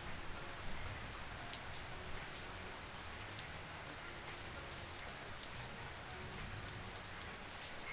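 Rain falling steadily, with scattered sharp drop ticks close by.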